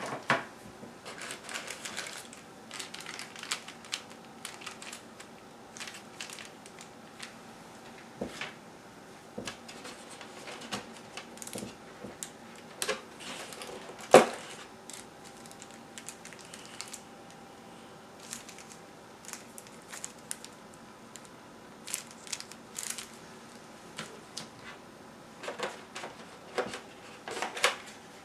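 Hands handling product packaging: plastic trays and clear plastic wrapping clicking and crinkling in irregular bursts as items are taken out of a cardboard box, with one louder knock about halfway through.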